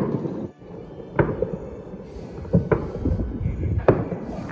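Fireworks bursting around the neighbourhood: a few separate bangs, each echoing, over a low rumble of further explosions.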